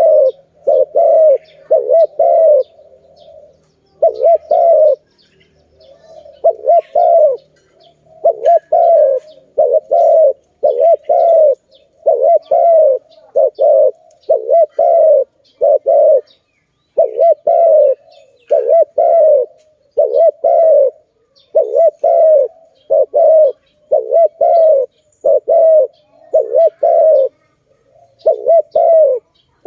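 Spotted dove (tekukur) cooing over and over in low notes, grouped in twos and threes, with short gaps between phrases.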